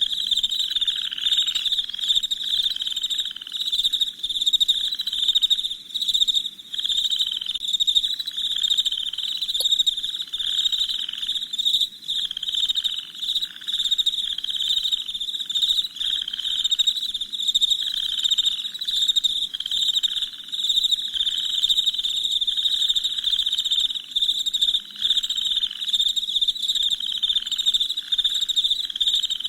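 Night chorus of crickets chirping densely and steadily, with a lower call pulsing about once a second underneath.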